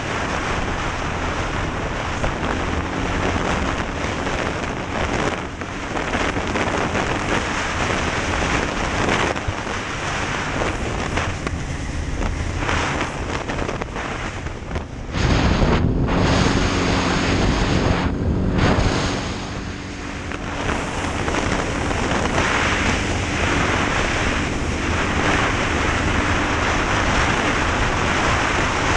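Off-road engine running hard at speed, almost buried under heavy wind rush on the microphone. About halfway through it gets louder, climbing in pitch and then holding a steady high note.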